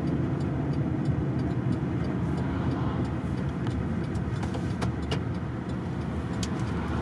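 A 4x4 on the move, heard from inside its cabin: steady low engine and tyre rumble, with a few faint clicks and rattles about five and six and a half seconds in.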